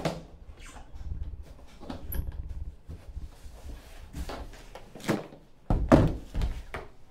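A trombone being handled: a few sharp knocks and clunks, the loudest cluster about six seconds in, over low rumbling handling noise.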